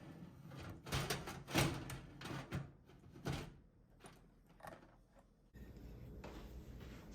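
Several clunks, knocks and scrapes from computer parts being handled, the loudest in the first half. Steady room noise follows near the end.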